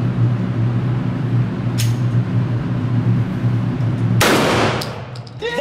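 A single 12-gauge shotgun blast about four seconds in, with a short ringing tail in the indoor range, over a steady low hum. A faint sharp click comes a couple of seconds before it.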